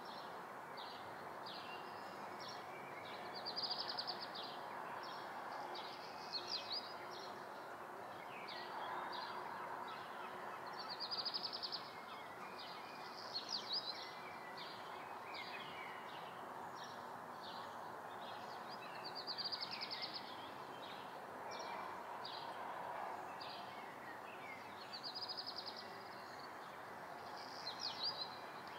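Summer-morning room ambience: small birds chirping and trilling over a steady low background hiss. A short rapid trill recurs about every eight seconds among scattered single chirps.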